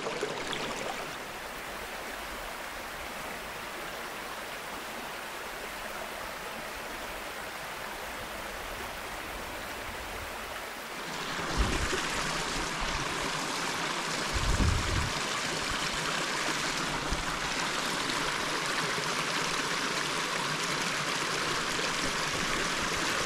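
Small mountain brook trout stream running over rocks, a steady rushing. About halfway through it gets louder and brighter, with a couple of short dull thumps soon after.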